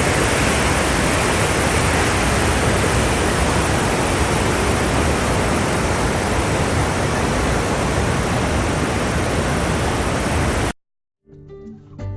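Steady, loud rush of the Rhine Falls' water that cuts off suddenly near the end; after a brief silence, music begins.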